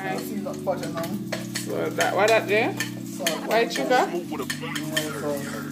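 A metal spoon scraping and clicking against the inside of a plastic jar as seasoning is spooned out over a cooking pot, with a steady low hum underneath.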